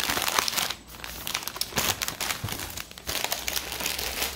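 Plastic wrapping of KF94 face-mask packs crinkling as they are handled and lifted out of a cardboard box. It comes in several bursts, the loudest in the first second.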